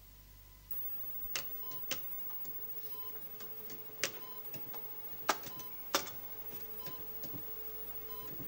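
Electronic monitoring equipment ticking and clicking irregularly over a steady electronic hum, with faint short beeps recurring about every half second. The hum comes in under a second in.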